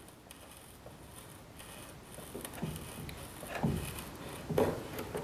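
Serrated hinge-slotting broach blade scraping and crunching into a wooden control-surface cap as it is rocked back and forth to cut a hinge slot, with a few louder short scrapes in the second half.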